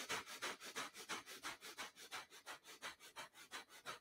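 Breath of fire: rapid, forceful breathing in and out through the nose, in a quick, even rhythm of several breaths a second.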